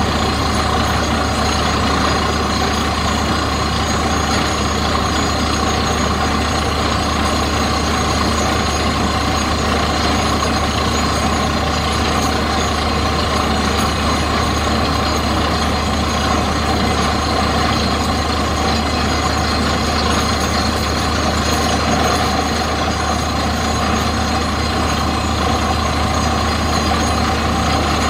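Truck-mounted borewell drilling rig running steadily as it drills, with a loud, unbroken engine hum while rock dust and cuttings blow out of the hole.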